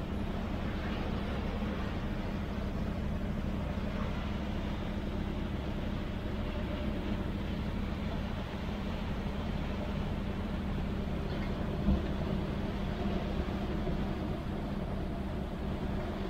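Steady drone of a ferry's engines under way, with the rush of churning wake water at the stern. A brief thump about twelve seconds in.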